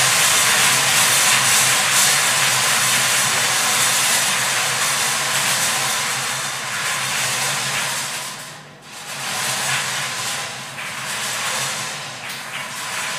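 Numbered lottery balls clattering and tumbling inside several hand-cranked wire-cage drums spun at once, a dense steady rattle that fades and dips briefly about nine seconds in before picking up again.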